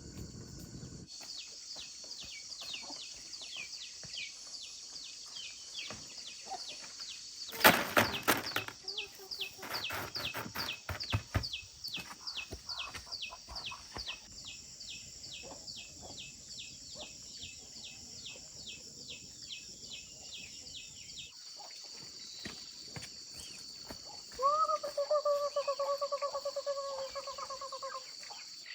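Farmyard ambience: a steady high drone of insects with rapid repeated chirping, a cluster of loud knocks about a third of the way in, and a rooster crowing near the end.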